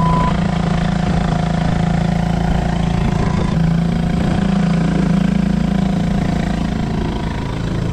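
Sailboat's engine running steadily under way.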